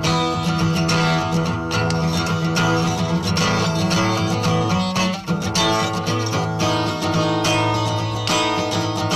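Steel-string acoustic guitar strummed steadily, the chords changing every second or so, with a brief break in the strumming about five seconds in.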